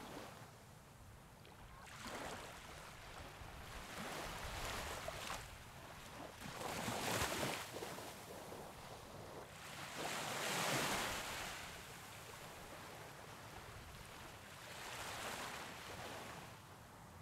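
Sea waves breaking and washing up onto a sandy beach, the surf swelling and falling back every few seconds, loudest about seven and eleven seconds in.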